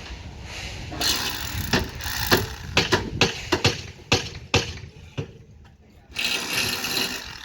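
Irregular sharp knocks and scraping from construction work, about ten knocks in three seconds, followed near the end by a second of rushing, hissing noise.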